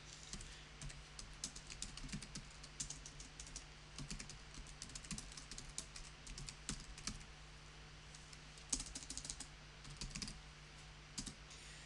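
Typing on a computer keyboard: irregular key clicks, with a pause of about a second two-thirds of the way through and then a quick run of keystrokes.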